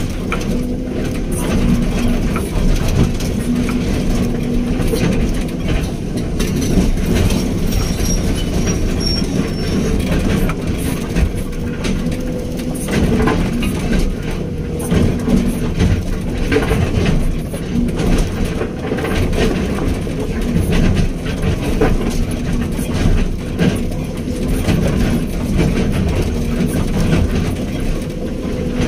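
Hydraulic excavator's diesel engine running steadily at working speed, with frequent knocks and clanks from the machine as it works.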